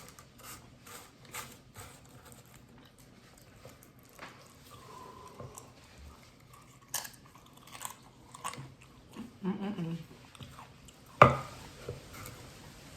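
Close-up chewing and biting of a buffalo chicken quesadilla, with many small wet mouth clicks and smacks. There is a brief voiced hum about nine and a half seconds in, and one sharp loud click at about eleven seconds.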